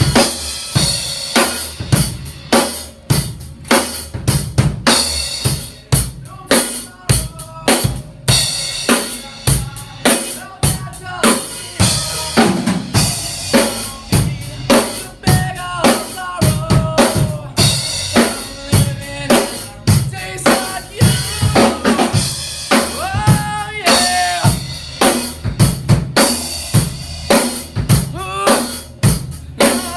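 Rock band playing loudly, led by a drum kit with a steady beat of bass drum and snare hits. Sliding pitched notes come in over it midway and again later.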